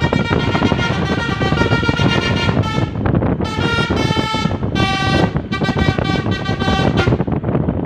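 A bus's 'basuri' telolet musical air horn plays a melody of held notes stepping up and down in pitch, with short breaks, and stops about seven seconds in. Steady road and engine noise runs underneath.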